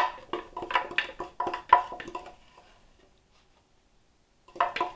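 Repeated knocking on a plastic blender jar to tap out crushed Hot Cheetos stuck inside: quick knocks with a hollow ringing tone, about three a second. One run lasts about two seconds, a pause follows, and another run starts near the end.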